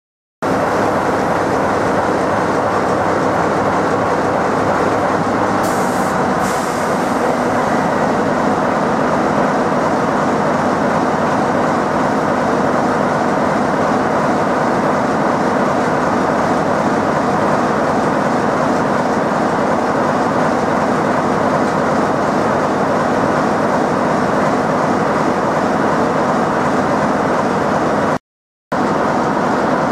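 BR Class 45 'Peak' diesel locomotive's Sulzer 12-cylinder engine running steadily as the locomotive runs round its train, with a brief hiss about six seconds in.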